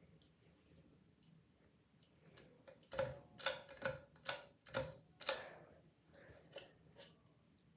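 A quick run of sharp clicks, about eight in two and a half seconds, starting about three seconds in, over a faint steady hum.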